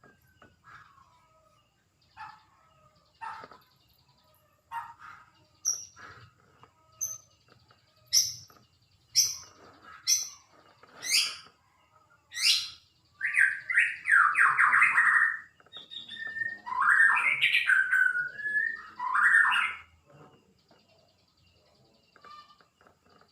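A bird calling: a run of short, sharply rising chirps, then several seconds of louder warbling phrases.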